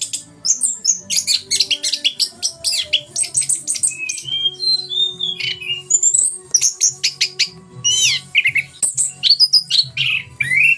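Orange-headed thrush (anis kembang) singing a loud, continuous, varied song of fast chattering runs and sweeping whistled notes.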